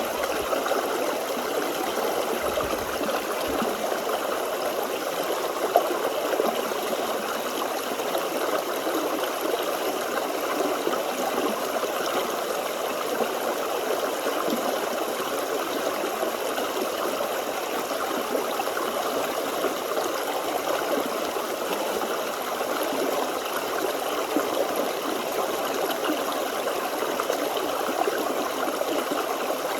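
Forest stream flowing and babbling steadily, water running over stones with a gurgle.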